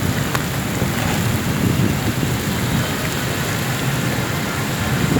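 Heavy rain pouring down in a steady rush with a strong low rumble underneath.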